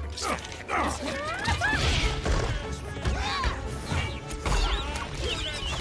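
Animated-film battle sound effects: a rapid run of crashes, impacts and whooshes over background music, with short gliding cries mixed in.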